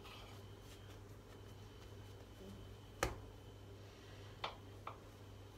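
A few sharp knocks of kitchen utensils on a granite countertop while dough is cut into pieces: one clear knock about three seconds in and two lighter taps a second or so later, over a low steady hum.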